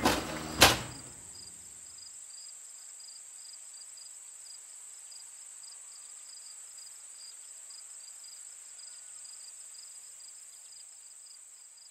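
A sharp click just under a second in, then insects chirring steadily: a high buzz with a pulsing chirp about three times a second, fading out near the end.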